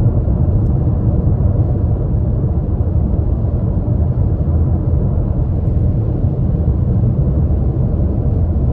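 Steady low rumble of a car cruising on a freeway, heard from inside the cabin, made up of road and engine noise.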